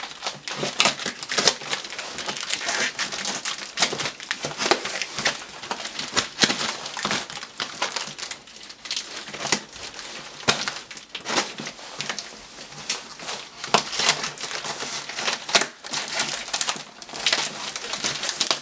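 A shipping package being opened by hand: irregular crinkling, crumpling and rustling of packing material, with some tearing.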